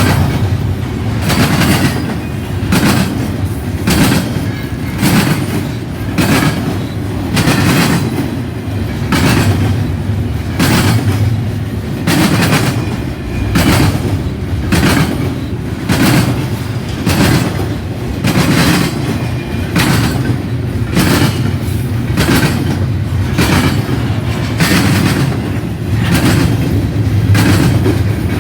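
Cars of an intermodal freight train rolling past close by, their wheels clicking over rail joints in an even rhythm of about two clicks a second over a steady low rumble.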